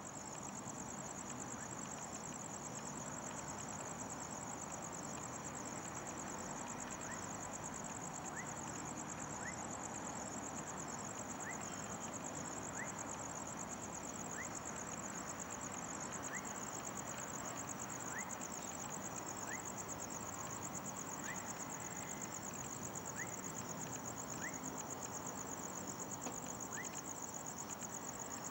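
Night insects chirring steadily in a high, fast-pulsing tone over a low background hum, with a faint short rising chirp repeating every second or two from about eight seconds in.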